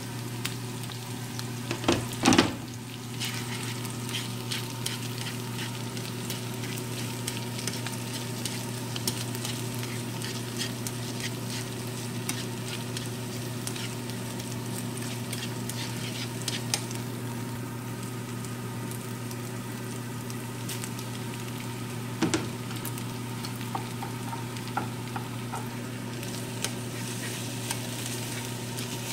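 Stir-fry of egg, onion, chicken and broccoli sizzling in a nonstick frying pan, stirred with wooden chopsticks that click and scrape against the pan. A louder clatter comes about two seconds in and again around 22 seconds in, over a steady low hum.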